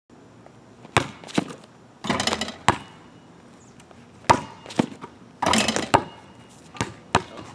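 Basketball bouncing on an asphalt driveway and sneakers hitting the pavement during a dunk run-up: a string of sharp single thuds, with two short rushes of quick scuffing steps, about two seconds in and again near the end.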